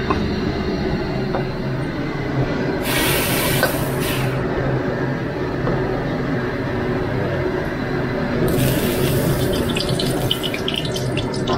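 Hot fried garlic in oil poured into a large pot of hot soup, hissing ("fu") in two bursts, the first about three seconds in and the second about eight and a half seconds in, over a steady low noise.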